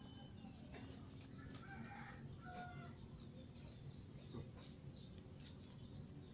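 Faint background: a low steady hum with a few short bird calls in the first half and scattered soft crackles of dry leaves.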